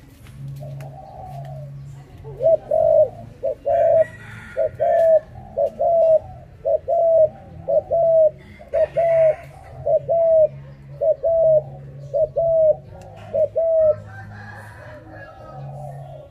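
Spotted dove cooing: a long series of short, hooked notes in pairs, about one pair a second, starting a couple of seconds in and stopping near the end.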